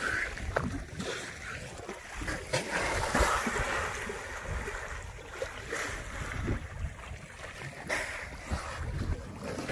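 Wind buffeting the microphone over choppy open water, with small waves slapping and splashing against the hull. It gets briefly louder about three seconds in.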